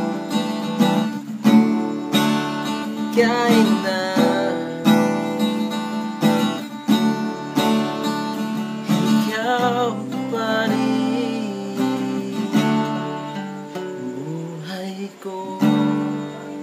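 Acoustic guitar strumming and picking the instrumental closing bars of a slow love ballad.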